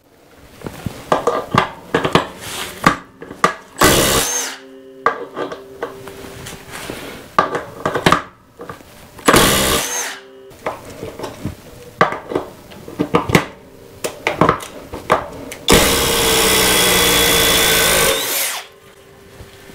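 Cordless impact drivers being handled and set up, with scattered clicks and knocks, and two short trigger bursts about four and nine seconds in. Near the end, a Flex 24 V impact driver runs for about two and a half seconds, driving a bit into wood, then stops abruptly.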